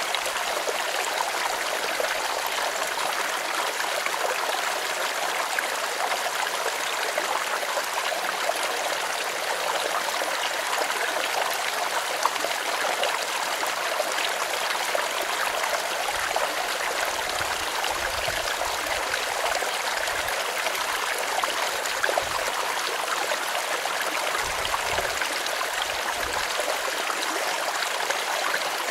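A small stream flowing and babbling steadily. Several low rumbles come and go in the second half.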